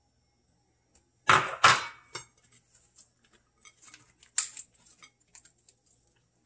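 Two sharp clinks of a small ceramic bowl knocking on hard surfaces, a little over a second in. Then soft, crisp crackling and rustling as a romaine lettuce leaf is folded around ground beef by hand, with one sharper crack partway through.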